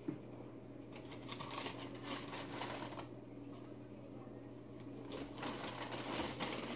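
Tissue paper rustling and crinkling as it is handled and pulled out of a shoebox, in two spells of a couple of seconds each.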